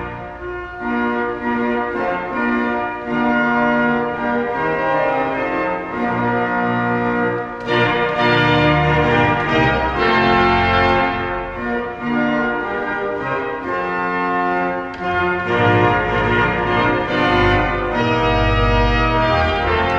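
Pipe organ playing held chords over a moving bass line.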